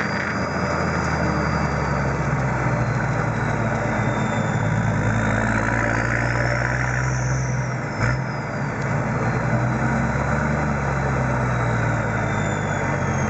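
Toyota 1HZ 4.2-litre six-cylinder diesel with an aftermarket Denco turbocharger running, its high turbo whistle gliding up and down several times with the throttle over the engine's steady note. A short knock comes about eight seconds in, with a brief dip in the engine sound.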